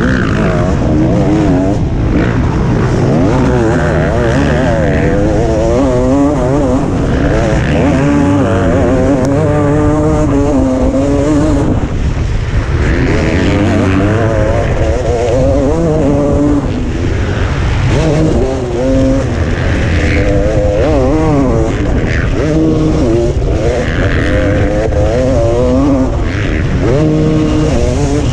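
A motocross bike's engine at racing pace, heard from the rider's helmet camera, its revs climbing and dropping over and over as the rider accelerates, shifts and backs off, over a steady low rush of wind noise.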